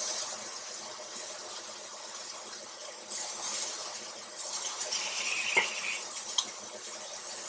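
Bacon-wrapped filet steaks sizzling in a hot enameled cast-iron skillet, a steady hiss that swells a couple of times as the steaks are moved, with metal tongs clicking against the pan a few times as the steaks are stood on their edges to crisp the bacon.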